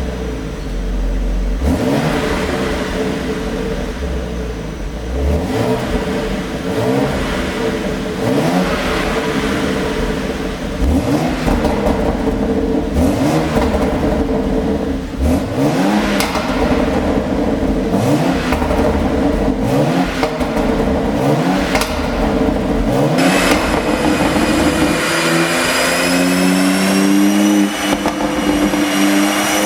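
BMW X3 M's twin-turbo straight-six being blipped over and over, about every one and a half seconds, with the exhaust popping and crackling as each rev falls back, the sign of a pop-and-crackle tune. Near the end the blipping gives way to a steadier engine note with a high whine.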